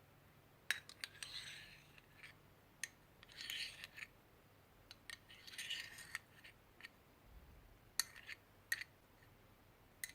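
Hands handling slime-making materials: several sharp, light clicks and three short scratchy rustles, with quiet gaps between them.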